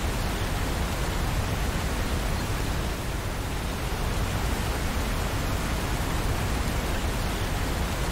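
Steady rain, an even hiss with no separate drops or knocks standing out.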